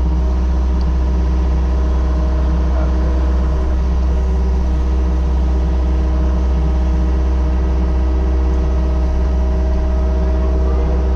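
Excavator's diesel engine running at a steady speed, a constant low hum that does not rise or fall.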